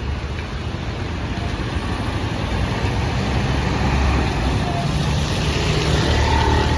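Large diesel bus engine rumbling over road noise, growing louder over the first few seconds as it approaches.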